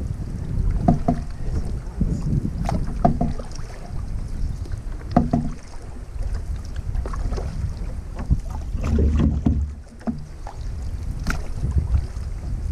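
Water splashing and sloshing against a canoe's hull as it is paddled through choppy lake water, in irregular splashes every second or two, over a steady low rumble of wind on the microphone.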